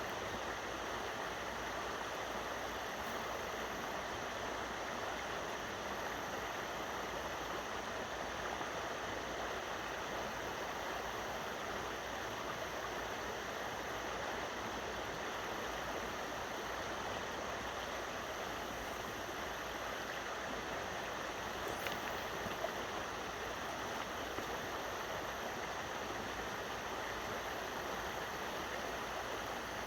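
Steady rushing of creek water below a dam, an even hiss that does not change, with a faint tick about two-thirds of the way through.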